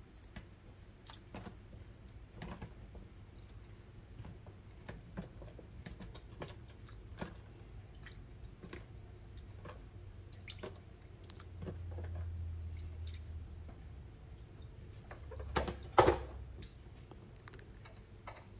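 Raw pig-tail pieces being put by hand into cold water in a glass pot: soft wet plops and small splashes with scattered light clicks, and one louder knock about sixteen seconds in.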